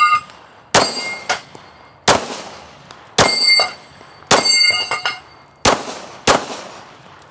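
Six 9mm pistol shots from a Glock 17 Gen 1 (P80) replica, fired about a second apart. Several are followed by the ringing clang of a steel target being hit.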